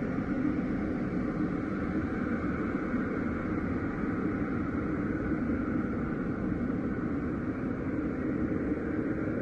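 Steady rumbling noise drone, even throughout, with no distinct events or tones.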